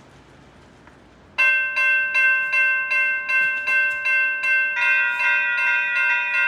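Electronic railroad bells ringing: one starts with a sudden strike about a second and a half in and repeats evenly at about three strokes a second. A second electronic bell with a different set of tones joins a little under five seconds in, and the two ring together.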